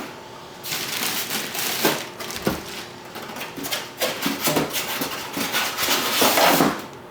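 Packaging being pulled off and handled, the foam end pieces and cardboard of the box: irregular rustling, scraping and crinkling with short knocks.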